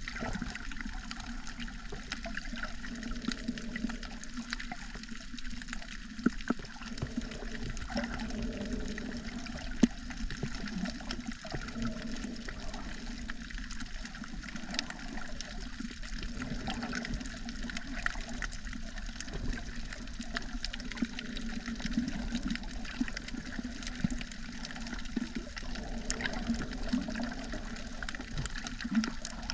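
Underwater sound picked up by a submerged camera: a steady, muffled rush of water with scattered sharp clicks, two louder ones about six and ten seconds in.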